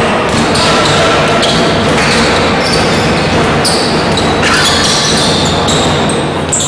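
Sounds of basketball play in a gym: a basketball bouncing on the hardwood court amid the steady, echoing noise of the hall.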